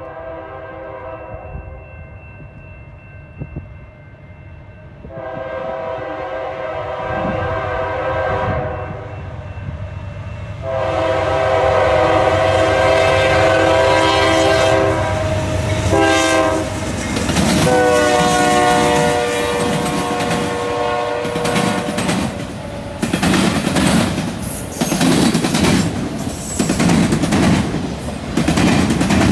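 CN freight locomotive's horn sounding a series of long blasts and one short blast, growing louder as the train approaches. This is followed by the rhythmic clickety-clack of freight-car wheels, autoracks among them, rolling over the track joints and junction switch, about one clack a second.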